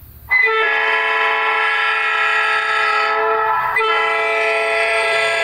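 Electronic telolet horn module sounding through a TOA horn speaker: a loud, held horn tone that breaks off briefly about three and a half seconds in, then sounds again.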